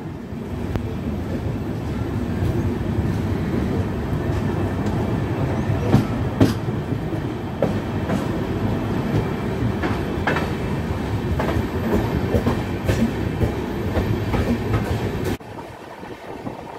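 Passenger train coaches running along the rails, heard from an open coach doorway: a steady rolling rumble with scattered clacks of wheels over rail joints. The sound drops suddenly to a much quieter noise near the end.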